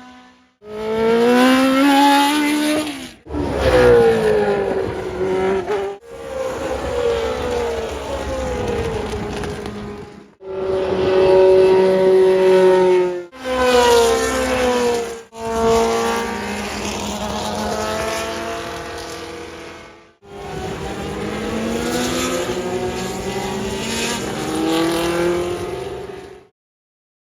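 Historic Formula 1 racing cars' engines at high revs, one car after another, their pitch rising and falling as they accelerate and pass, in a string of short clips that each cut off abruptly. The sound stops suddenly near the end.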